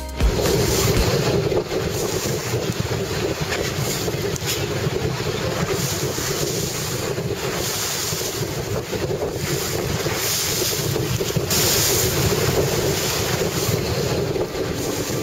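Strong wind buffeting the microphone over rushing water and spray from the Hydroptère, a hydrofoil sailing trimaran, at speed on rough sea. The noise is a dense, steady rush that swells briefly about twelve seconds in.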